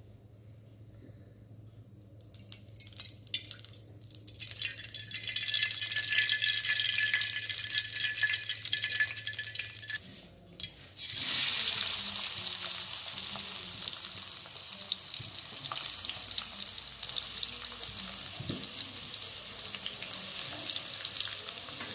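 Chopped onions sizzling in hot cooking oil in a non-stick kadai: a steady frying hiss through the second half. Before it there is a fainter hiss, and the opening is nearly quiet.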